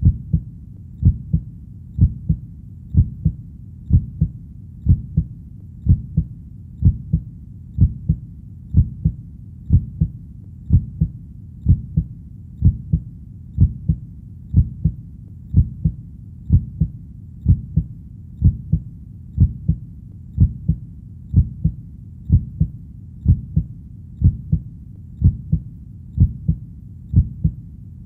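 Slow, steady heartbeat: a low double lub-dub thump about once a second, evenly repeated, over a faint low background hum.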